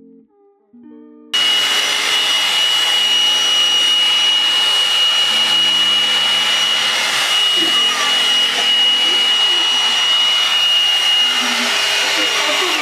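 Hot air brush (a blow-dryer brush) running at full power: a steady rush of blowing air with a steady high whine from its fan motor, starting abruptly about a second in.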